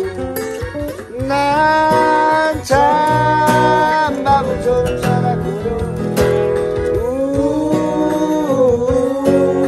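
Acoustic guitar accompanying a singing voice that holds long notes, in a slow Korean ballad.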